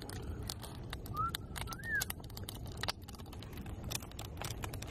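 Large wood bonfire crackling, with scattered sharp pops over a low steady rumble. A bird gives two short chirps a little over a second in.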